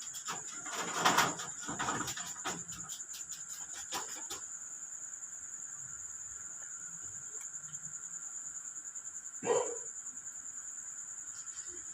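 Night insects, crickets, trilling steadily in a high, continuous tone. A fast run of ticks sounds through the first four seconds, and a brief, louder sound about nine and a half seconds in.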